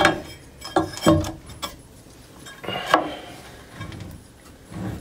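A marble tile being set down and slid against the fence on a tile wet saw's metal sliding table, with the saw not running: a handful of sharp clinks and knocks over the first three seconds.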